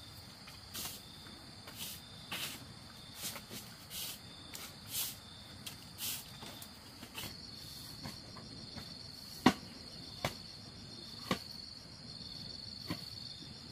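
Insects trilling steadily at a high pitch, over scattered knocks and clatters of household things being moved about. The sharpest, loudest knock comes about nine and a half seconds in.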